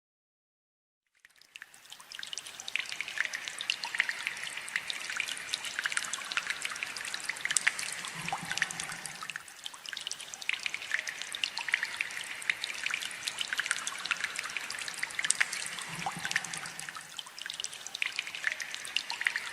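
Water trickling and dripping: a dense patter of small drops over a steady hiss. It starts after about a second of silence and swells twice.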